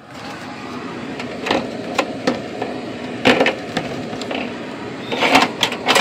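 Handling noise from a hand setting up and adjusting a phone camera: irregular taps and knocks, bunched together about five seconds in, over a steady room hiss.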